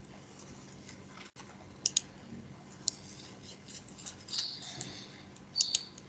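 A few small sharp clicks, a pair about two seconds in, a single one about a second later and another pair near the end, with a brief scratchy rustle in between, over a faint steady hum.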